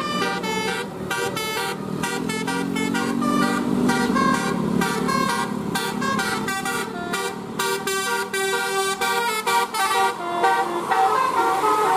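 A bus's telolet horn, a set of roof-mounted air-horn trumpets, plays a fast basuri-style melody of short, quickly changing notes. The bus's engine runs beneath it and grows louder near the end.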